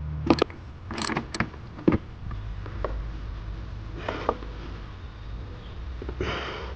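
Ratchet and 10 mm socket tightening a bolt on a cold air intake's airbox: scattered clicks and light metal knocks, with a short breath-like rush about six seconds in.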